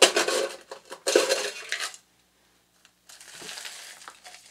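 A small cup scooping crushed ice out of a stainless steel ice bucket twice, each scoop under a second long, then a softer sliding hiss as the ice is poured onto the top of a drink in a metal cup.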